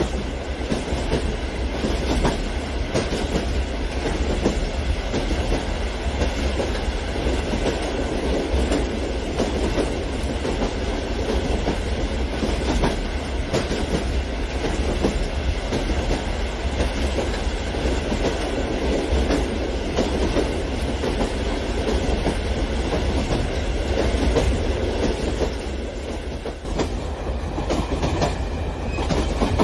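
Long model freight train of plastic boxcars rolling along plastic track: a steady rattle of wheels clicking over the rail joints, easing slightly near the end.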